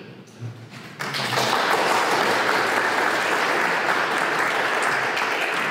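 Audience applauding. It starts abruptly about a second in, holds steady, and dies away near the end.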